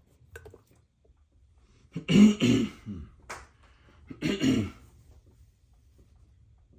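A man clearing his throat twice, the first about two seconds in and the second about four seconds in.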